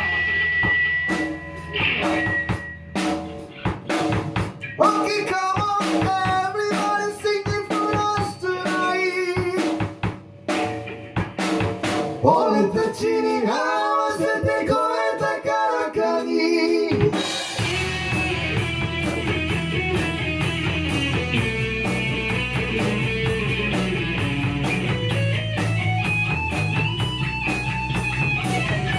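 Rock band playing an instrumental passage: drum-kit hits and stops with gaps between them, then a melodic guitar line, then the full band with a long sustained lead guitar melody over drums and bass.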